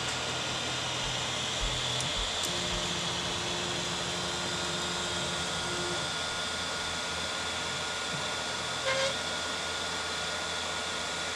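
3D printer's stepper motors whining as the axes move through homing and an eddy-current probe's rapid bed-mesh scan, over the steady hiss of its cooling fans. A held tone lasts a few seconds in the first half, and two short chirps come near the end, which the owner follows by saying he needs to lube his lead screws.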